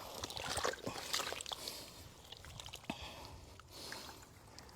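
Hands and feet moving through shallow muddy water, making irregular small splashes and sloshes.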